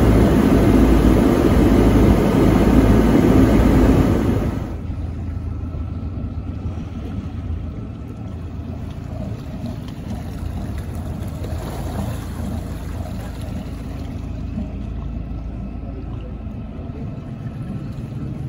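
Boat engine running at speed, with the rush of the hull and wake over it, loud for the first four and a half seconds. Then the sound drops suddenly to a quieter, steady low rumble.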